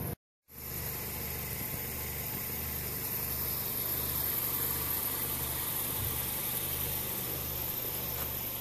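Toyota Corolla's 1.8-litre four-cylinder, 16-valve engine idling steadily, coming in about half a second in.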